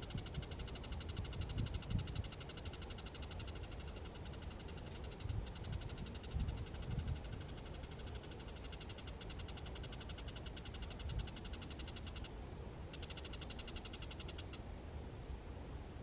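Bull-headed shrike calling: a long, rapid chattering rattle of evenly repeated harsh notes, with a short break about five seconds in, stopping about twelve seconds in, then a shorter burst of about a second and a half.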